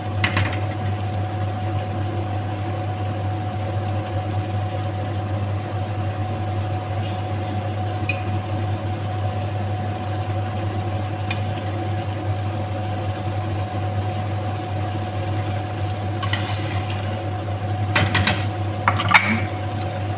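A steady appliance-like hum runs underneath a simmering pot, while a metal slotted spoon clinks and scrapes against the pot a few times as pieces of salmon are lifted out, most clearly near the start and near the end.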